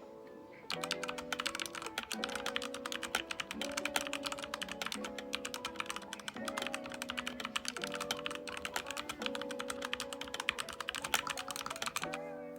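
Fast, continuous typing on a mechanical keyboard fitted with Akko Lavender Purple tactile switches, a dense run of key clicks that starts about a second in, over background music with sustained chords.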